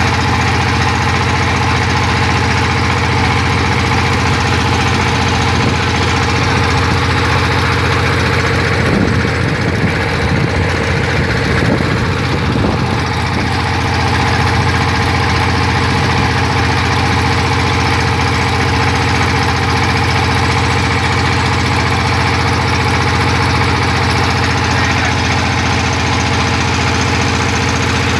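Drill rig's engine running steadily, with a briefly rougher, uneven stretch around the middle.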